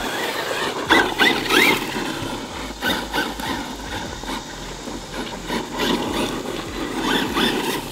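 Losi LMT King Sling RC mega truck driving on loose gravel: its electric motor whines, rising in pitch a couple of times as it accelerates early on, over the scrabble of the tyres on the stones.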